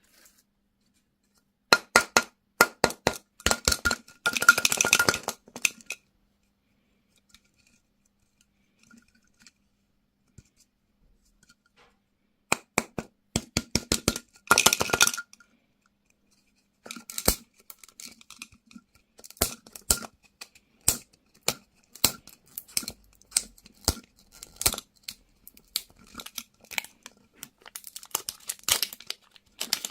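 Candy and toy packaging being handled and opened: sharp clicks, clinks and crackles in three bursts with quiet pauses between, the last burst running longest.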